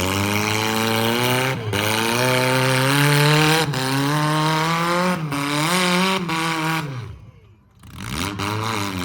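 A vehicle engine accelerating hard, its pitch climbing in steps with brief breaks between them, like gear shifts. About seven seconds in it drops off to near quiet for about a second, then revs back up.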